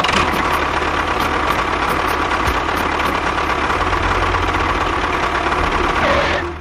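A small motor running steadily with a dense, rattling hiss. It starts abruptly and cuts off just before the end.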